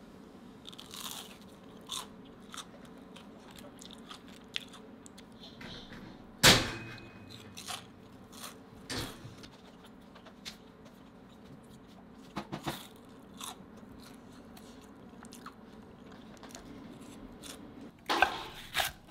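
Close, crisp food-and-kitchen sounds: scattered short crunches, clicks and knocks. The loudest is one sharp knock about six and a half seconds in, with a small cluster around twelve seconds and another just before the end.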